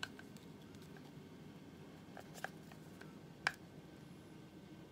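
Hand screwdriver driving a wood screw into a board, faint, with a few light clicks and a sharper click about three and a half seconds in.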